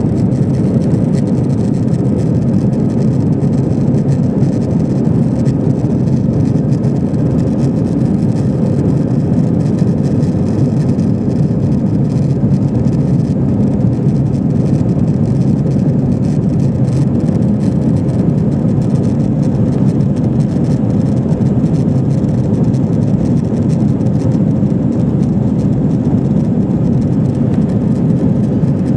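Airbus A320 jet engines running at high thrust during takeoff, heard from inside the passenger cabin as a loud, steady, deep noise that stays level throughout.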